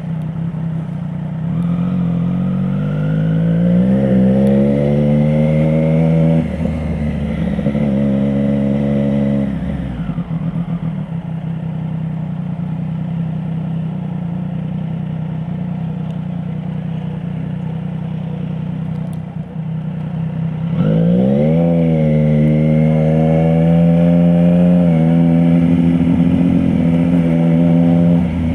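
Triumph Street Triple RS 765's inline three-cylinder engine running through an SC Project S1 slip-on with the baffle removed, while riding in traffic. It pulls up through the revs twice in the first ten seconds, settles to a steady lower note for about ten seconds, then climbs again about twenty seconds in and holds at higher revs.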